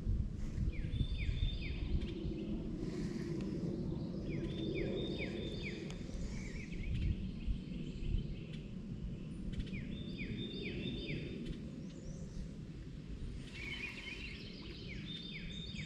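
A songbird singing four short phrases, each a quick run of downward-slurred notes, repeated every few seconds over a steady low rumble.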